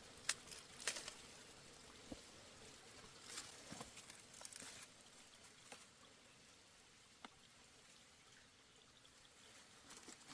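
Faint trickling water with scattered small splashes and sharp clicks, busiest in the first half and quieter after that.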